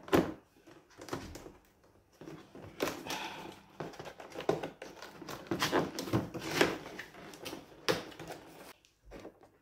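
Cardboard box being opened by hand: irregular knocks, scrapes and rustles as the top flaps are worked loose, with a sharp knock right at the start.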